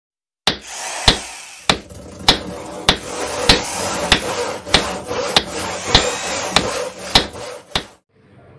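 Hammer-strike sound effects: about thirteen sharp blows, evenly spaced a little over half a second apart, over a steady noisy bed. They stop shortly before the end.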